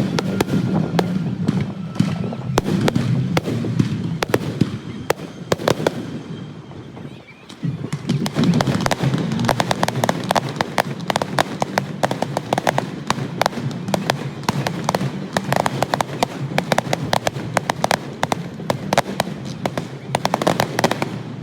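Fireworks going off: rapid crackling pops and bangs in dense volleys, easing off briefly about seven seconds in before a thicker stretch of crackling.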